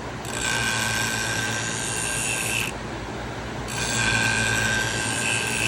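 Pinking-shear blade ground against the spinning abrasive wheel of a Wolff Twice As Sharp sharpener in two passes, each a scraping grind about two seconds long with a faint ringing tone in it. The sharpener's motor hums steadily underneath.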